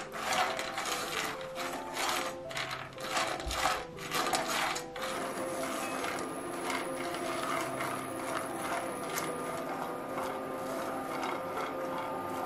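Walnut halves being stirred in a dry non-stick frying pan with a silicone spatula. For about the first five seconds there are quick runs of clattering clicks, then a steady scraping as the nuts toast.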